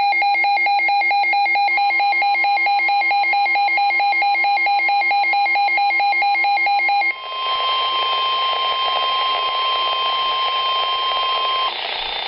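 A NOAA Weather Radio alert sequence. A rapid stream of pulsing electronic data beeps runs for about seven seconds and then gives way to hiss. Under both, the steady 1050 Hz weather-radio warning alarm tone sounds for about ten seconds and stops just before the end.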